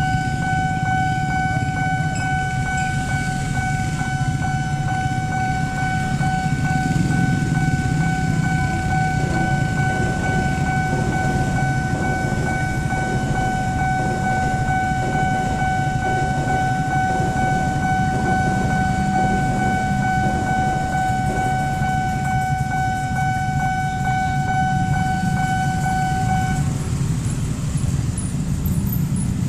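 Railway level-crossing warning signal sounding a steady ringing tone over the low rumble of a passing train. The signal cuts off about 27 seconds in, as the crossing clears.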